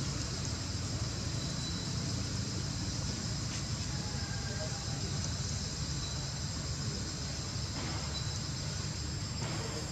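Steady outdoor ambience: an even, high insect drone with a low rumble underneath.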